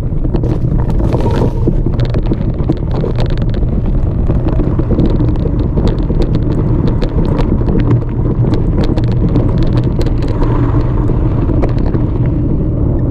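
Steady wind rush and rumble on an action camera's microphone while moving fast over a rocky trail and onto pavement, with frequent sharp rattling knocks from the rough ground.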